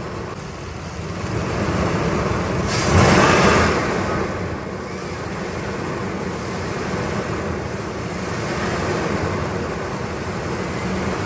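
Nissan Titan 5.6L V8 engine running steadily at a raised idle of about 2,000 RPM while Seafoam is sprayed into its throttle body, with a brief louder hissing rush about three seconds in.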